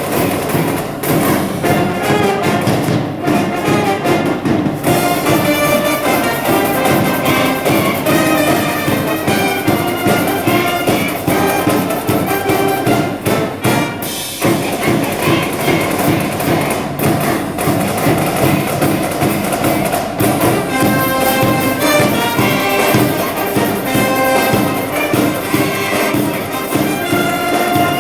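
High school brass band playing a baseball cheering tune: trumpets and trombones over drum beats, with a momentary break about 14 seconds in.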